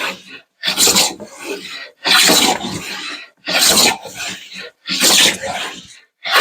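Sargent 414 hand plane taking shavings off construction-grade pine in about five strokes, one every second and a half or so, each a rasping cut that starts loud and tails off.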